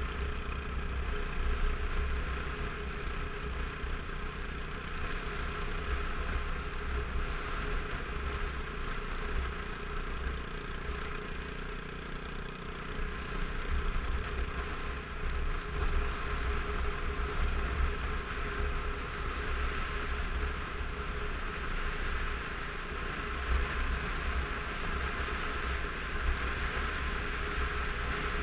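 Motorcycle engine running at a steady cruising speed on a gravel road, heard from a helmet-mounted camera with wind rumbling on the microphone.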